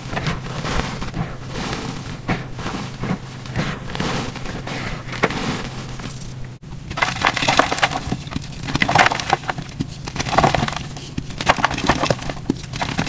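Powdery gym chalk crushed and crumbled between the fingers: dense, crisp crackling and crunching. There is a momentary break about halfway, and the crunches come louder and in clusters after it as solid blocks are broken apart.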